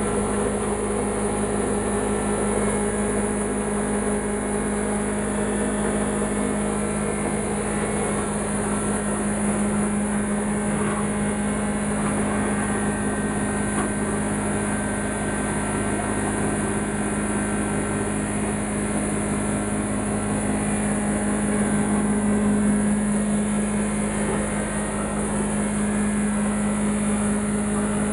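Industrial wood shredder running steadily on its electric motors, a constant machine hum with a strong low tone.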